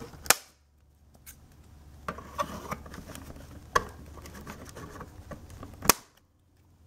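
Scissors snipping through the thin white ties that hold a plastic toy blaster to its cardboard box backing: three sharp snips, one just after the start, one a little before four seconds in and one near six seconds, with rustling and handling of the box and blaster between them.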